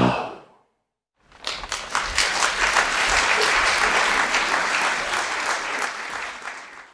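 The last note of a song dies away, then after a brief silence an audience applauds, the clapping slowly tapering off near the end.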